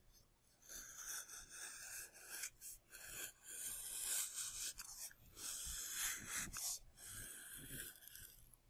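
Knife blade shaving thin layers off a glued foam-plastic fuselage block: a run of faint, uneven scraping strokes as the foam is carved to shape.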